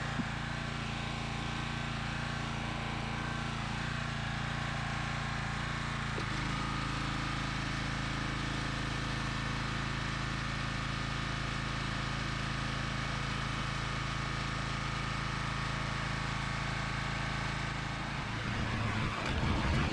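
A 2800 psi pressure washer runs steadily while a surface cleaner sprays a concrete driveway, giving a continuous engine drone under a hiss. The engine tone shifts about six seconds in, and the sound gets choppier near the end.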